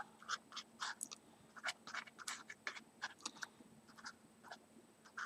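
Fine-tipped glue bottle dabbing and scraping against cardstock paper shamrocks as glue is spread: a string of faint, irregular little scratches.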